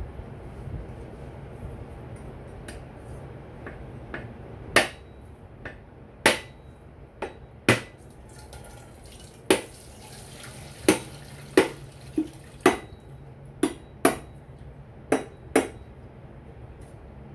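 A heavy kitchen knife striking a whole mature coconut, about a dozen sharp knocks at an uneven pace, to crack the hard shell open.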